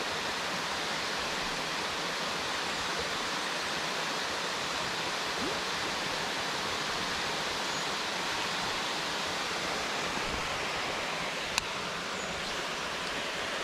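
Steady rush of water pouring over a small creek spillway, with one sharp click near the end.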